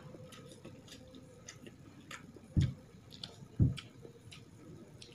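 Small wet clicks and smacks of a person eating rice and fried food by hand, scattered irregularly. Two dull low thumps, the loudest sounds, come about two and a half seconds in and a second later.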